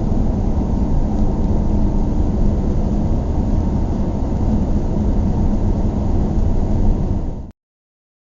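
Steady low rumble of engine and road noise heard inside a moving car's cabin, cutting off abruptly near the end.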